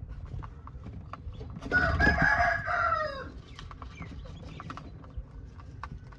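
A rooster crows once, a call of about a second and a half starting a little under two seconds in and dropping in pitch at the end. Faint scattered clicks and knocks run under it.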